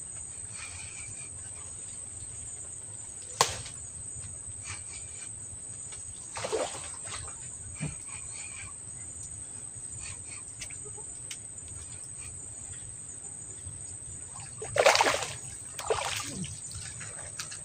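A hooked mangrove jack thrashing at the water's surface as it is hauled from the water on a rod: two loud bursts of splashing about a second apart near the end. Earlier there is a single sharp click and a brief smaller splash.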